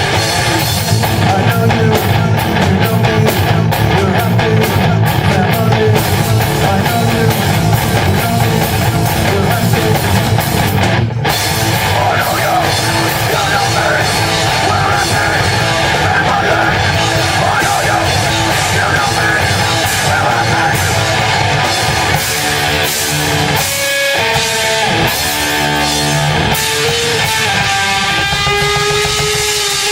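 A rock band playing live, with distorted electric guitar and a drum kit, loud and dense. About two-thirds of the way through the drums thin out and the guitar carries on with held, bending notes.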